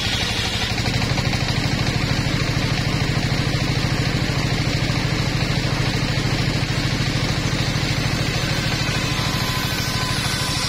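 Engine driving a table-mounted circular saw runs steadily with a fast, even pulse. The blade's cut through a wooden plank ends about a second in, the blade then spins free, and a new cut begins near the end.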